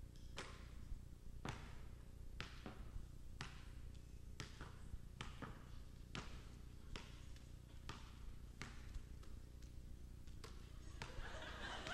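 Basketball bounced on a stage floor in a loose rhythm, one bounce every half second to a second. About eleven seconds in, a wash of audience noise rises under the bounces.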